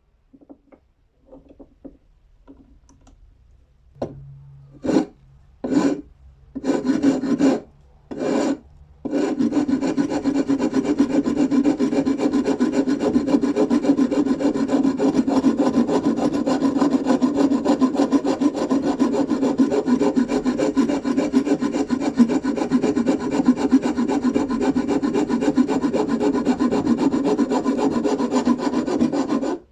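Abrasive rubbing during restoration work on a screwdriver: a few short strokes, then continuous rubbing from about nine seconds in.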